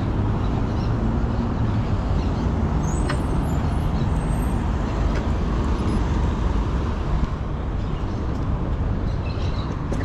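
Steady rush of wind and rolling noise while riding a bicycle, with car traffic around at a city intersection. A single light click about three seconds in.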